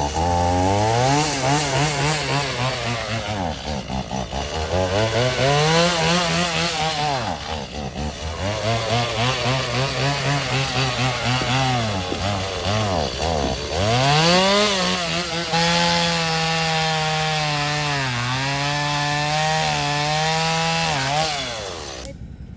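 Chainsaw engine revving up and down again and again, then held at high speed for several seconds as it cuts wood, before it stops near the end.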